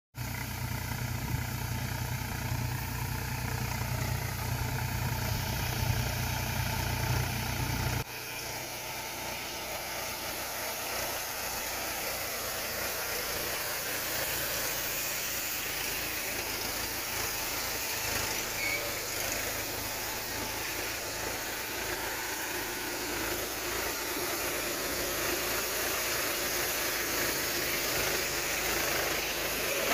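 Self-propelled tractor boom sprayer running through a crop while spraying, its engine sound under a steady hiss of spray. A heavy low rumble for the first eight seconds cuts off abruptly, leaving the even hiss.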